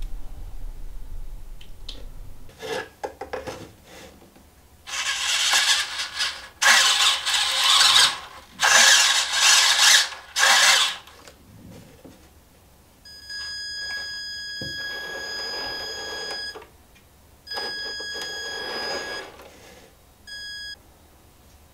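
Sound effects played through the speaker of an add-on Reely sound module in an RC military truck model: four loud hissy bursts, then a high steady horn-like tone with a rumbling noise under it, sounded for about three seconds, again for under two, and once briefly near the end.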